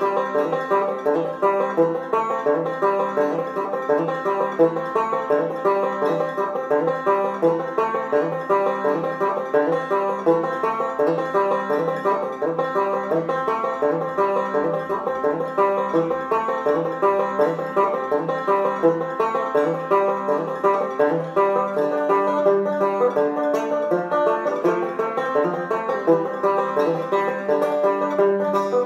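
Solo banjo played in a steady stream of quickly picked notes.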